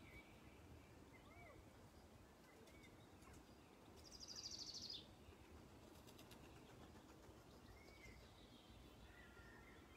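Faint birdsong: scattered short chirps and a rapid high trill about four seconds in, lasting about a second, over low steady background noise.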